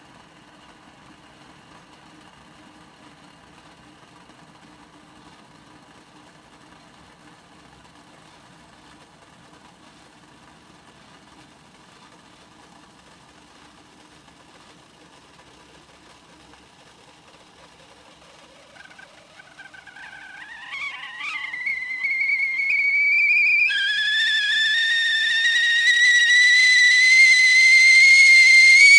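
Whistling kettle coming to the boil: a faint steady noise at first, then about two-thirds of the way in the whistle starts, wavering and sputtering before it settles into a loud steady whistle that slowly rises in pitch as the steam builds.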